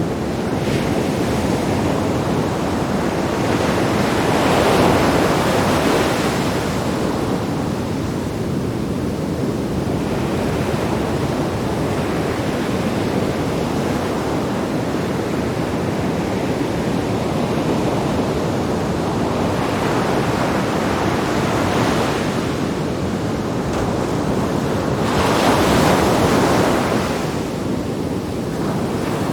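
Sea waves breaking on rocks: a continuous rushing wash of surf, swelling louder as a wave hits about five seconds in and again near the end, with some wind on the microphone.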